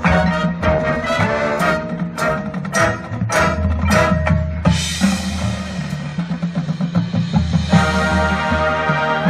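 High school marching band playing its competition show: a run of sharp accented hits with percussion, about three a second, over brass and winds, then a long wash of sound followed by full sustained chords near the end.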